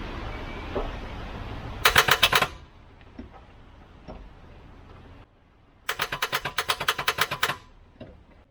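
Starter solenoid on a Volvo 240's redblock engine chattering in two rapid bursts of clicks, about a dozen a second, the second burst longer than the first. The engine doesn't turn over: too little current is reaching the starter from a small portable jump starter.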